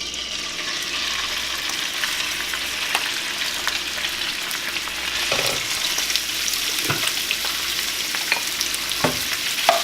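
Shrimp frying in hot olive oil in a skillet: a steady sizzle that starts suddenly as they go in, with a few light knocks in the second half.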